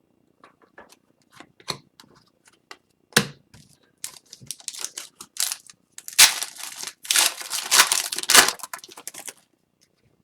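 Hockey trading cards being handled, with scattered light clicks and flicks, then denser crinkling and rustling of card packaging from about four seconds in.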